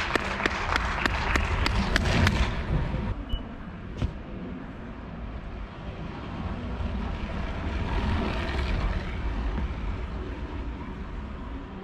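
Rhythmic clapping, about three or four claps a second, that stops about three seconds in. It is followed by the low rush of a track bicycle rolling on the wooden velodrome boards, which swells and fades around eight seconds in.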